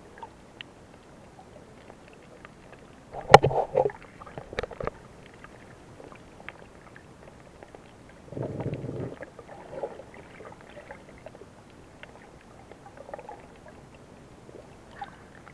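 Muffled underwater sound picked up by a submerged camera: a cluster of sharp clicks and knocks about three to five seconds in, and a short low rushing noise near nine seconds, over a quiet hiss.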